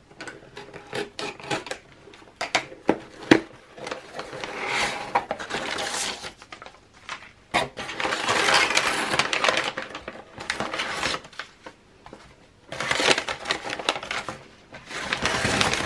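A cardboard shipping box sealed with paper tape being opened by hand: sharp clicks and knocks as the tape is cut and the flaps are pulled open. Then several spells of rustling and crinkling as kraft paper packing is pulled out.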